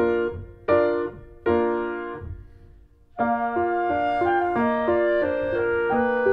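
Background piano music: two chords struck and left to fade, a short pause, then the piano melody picks up again about three seconds in.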